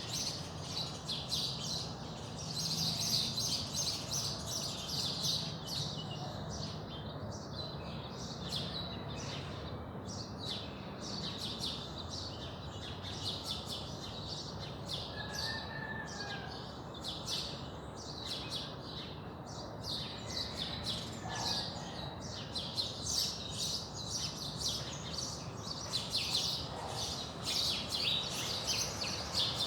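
Dawn chorus of many small birds: quick, high chirps and trills overlapping throughout, thinning out in the middle and growing busier again near the end, over a low, steady background rumble.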